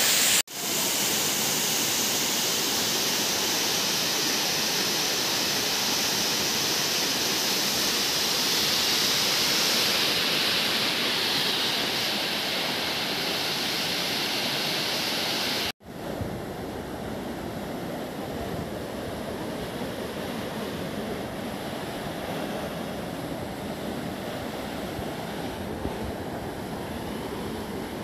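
Steady rushing of a tall waterfall, a continuous hiss of falling water. It breaks off abruptly twice, once just under a second in and again about halfway through, and after the second break it is quieter and duller.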